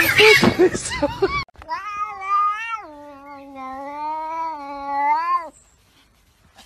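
A domestic cat's long, drawn-out yowl lasting about four seconds, dropping in pitch after the first second and rising slightly just before it stops. Before it, a brief noisy scuffle with short cries is cut off abruptly.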